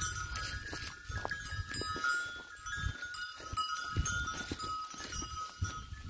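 Bells on a grazing flock of sheep clinking and ringing, several bell tones overlapping on and off, over a low rumble.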